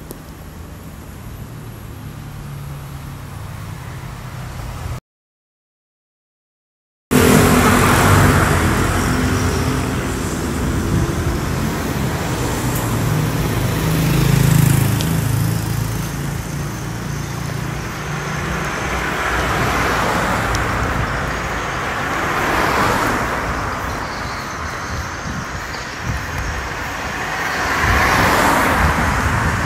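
Road traffic: cars passing one after another, each a whoosh that swells and fades, over a steady low rumble. The sound drops out completely for about two seconds, starting about five seconds in, and comes back louder.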